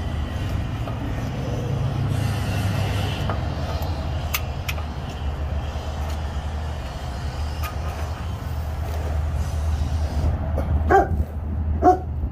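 A steady low rumble, with a few sharp separate clicks of a wrench working the oil pan bolts on a GM 5.3 V8. Two short barks come about a second apart near the end.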